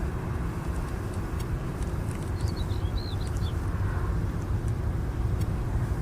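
Boeing 747-400 jet engines rumbling steadily, with a short bird chirp about two and a half seconds in.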